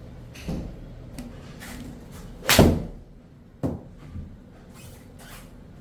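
A golf club swinging and striking the ball, the loudest strike about two and a half seconds in, with lighter knocks and swishes before and after.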